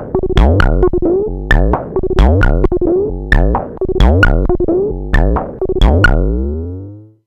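Moog DFAM analog percussion synthesizer playing a repeating sequenced pattern: low thumping hits and sharp clicky hits with quickly falling pitch sweeps. About six seconds in the pattern stops, and the last hit rings out and fades away.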